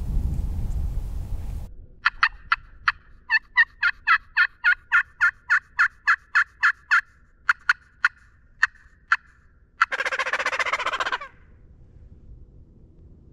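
Wind rumble on the microphone cuts off, then wild turkey calls follow: a fast run of about twenty sharp yelping notes, three or four a second, which thin out and stop. About ten seconds in comes a single rattling gobble lasting just over a second.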